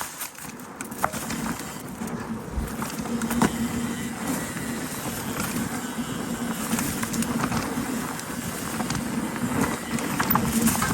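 Electric enduro mountain bike being ridden over a forest trail: steady tyre and rolling noise with scattered knocks and clicks from the bike and trail, under a faint steady low hum.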